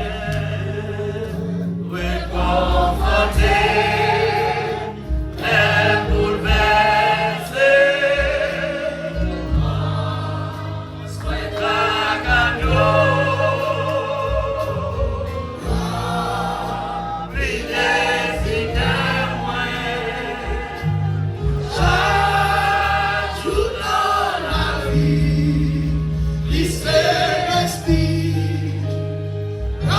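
A gospel worship song sung by a group of voices, with instrumental accompaniment holding sustained bass notes.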